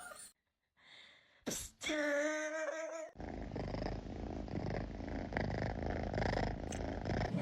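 A domestic cat purring steadily close to the microphone, preceded about two seconds in by a single drawn-out, steady-pitched meow.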